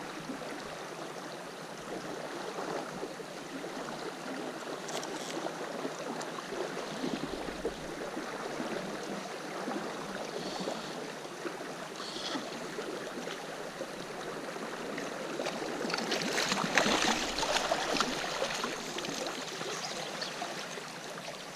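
Shallow river water running steadily over gravel, with a louder stretch of splashing about three-quarters of the way through.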